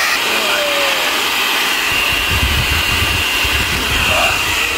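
Heavy-duty handheld hair dryer running steadily, a loud rush of air with a thin high whine, blowing heat onto vinyl wrap to soften its adhesive as it is peeled off a car bonnet. A low rumble joins from about two seconds in until near the end.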